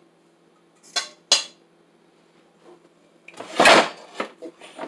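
Kitchen dishes and utensils being handled: two sharp clicks about a second in, then a louder clatter a little past the middle, followed by a few lighter knocks.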